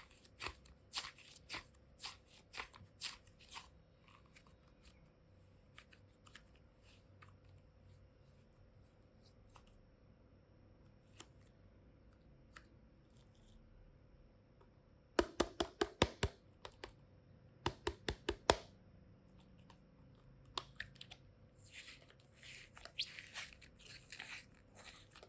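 Hands handling toy boxes and their packaging: scattered taps and clicks, then several quiet seconds, then a quick run of sharp clicks past the middle, with crinkling and rustling near the end.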